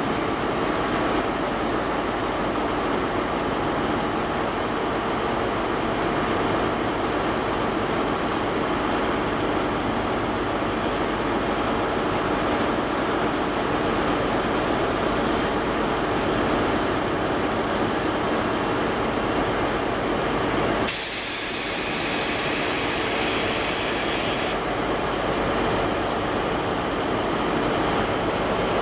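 Diesel multiple unit's underfloor engines running steadily as the train rolls slowly past over the station pointwork. A few seconds of sharp hiss break in about three-quarters of the way through.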